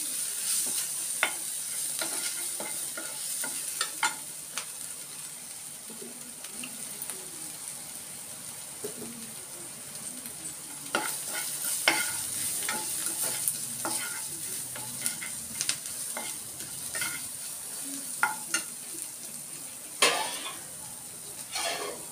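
Onion-tomato masala with spice powders frying in a non-stick pan, sizzling steadily while a steel spatula stirs it, with scattered clicks and scrapes of the spatula on the pan. Near the end, water is poured into the hot pan.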